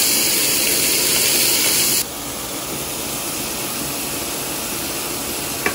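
Thinly sliced beef sizzling as it fries in a cast-iron pan, a steady hiss that drops suddenly in level about two seconds in. A single sharp click comes near the end.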